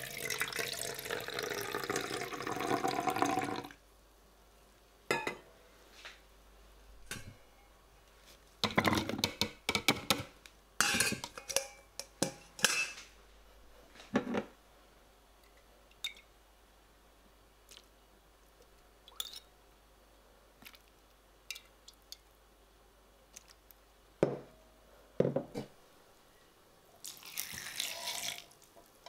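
Water pouring and dripping for about four seconds as soaked dates are tipped from a metal sieve into a plastic food processor bowl. Then come scattered clinks and knocks of a metal spoon and utensils against the bowl.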